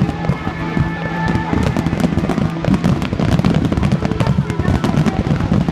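Fireworks going off in rapid succession, a dense run of crackling and popping, with music and voices underneath.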